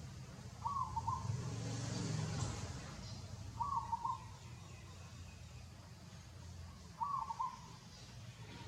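An animal's short wavering call, repeated three times about three seconds apart, over a steady low background rumble.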